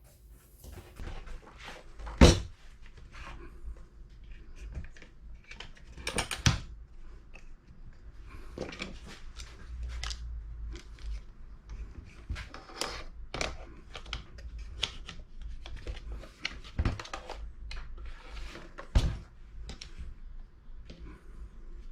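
Handling noises: a scattered run of clicks, taps and rustles, with a few louder knocks standing out. No power tool is running.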